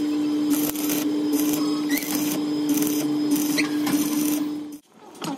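Stick (arc) welding on a steel truck tie rod: the arc crackles and hisses steadily over a steady hum, then cuts off suddenly when the arc is broken near the end.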